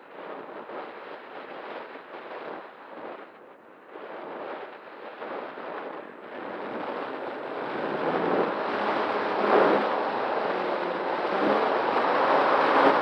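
Wind rushing over the microphone of an RC glider's onboard FPV camera, gusty at first and growing steadily louder over the second half.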